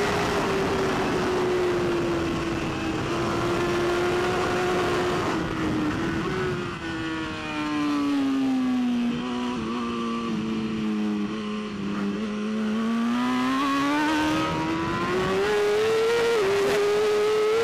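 BMW S1000RR superbike's inline-four engine at race pace. The engine note sinks gradually for several seconds as the revs drop, then climbs again under acceleration, with a quick gear change near the end.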